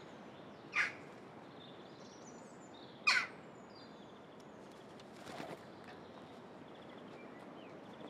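Jackdaws calling: short sharp 'chak' calls about a second in and again about three seconds in, then a fainter one about halfway through, with faint high twittering of small birds behind.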